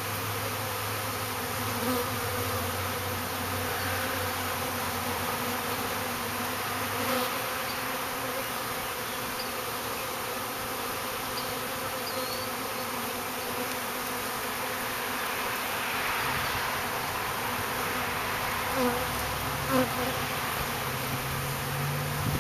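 Honey bees buzzing around the entrance of a wooden hive: a steady hum of many wings, with a few brief louder buzzes. It is a newly hived colony settling in, bees flying in and out of the entrance.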